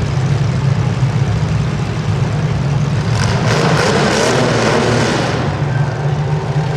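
Demolition derby compact cars' engines running with a steady low hum. Around the middle a louder rush of noise comes in for a couple of seconds, then fades.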